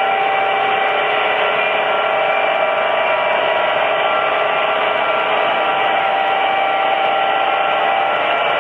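O-gauge model freight train rolling past: a steady rushing and whirring of many cars' wheels on three-rail track, with faint held tones over it and no let-up.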